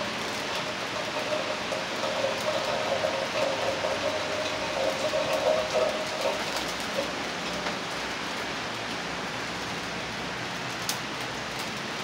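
Heavy rain pouring down, an even hiss with scattered drip ticks. A steady mid-pitched tone runs under it for the first half and fades out about six seconds in.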